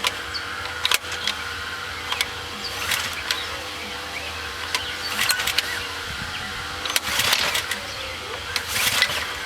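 Recoil pull-starting of a Ridgid RD80702 pressure washer's fuel-injected Robin engine: several short cranking pulls about two seconds apart, and the engine does not catch. It is the sign of a no-start; the owner concludes it looks dead.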